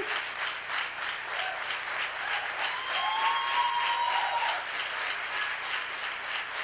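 An audience applauding steadily. A single voice calls out over it in one long, high note about two and a half seconds in.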